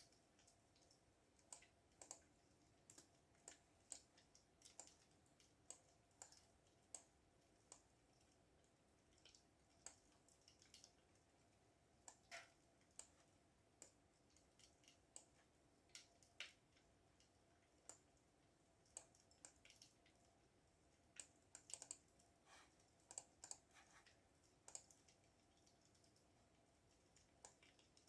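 Faint typing on a computer keyboard: irregular key clicks, a few a second, with short pauses and a longer one near the end.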